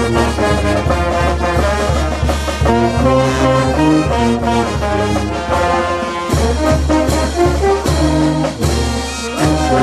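Brass band music: trumpets and trombones playing a melody in held notes over a bass line.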